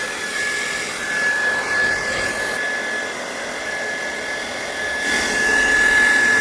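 Hair dryer blowing steadily at full power, a rushing of air with a high fan whine on top, heating the phone's front glass to soften the adhesive under the digitizer. The whine drops out briefly about three seconds in.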